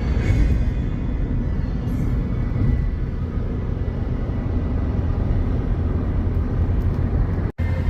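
A steady, loud low rumble of noise with no distinct events, the kind made by wind buffeting a microphone or a vehicle running.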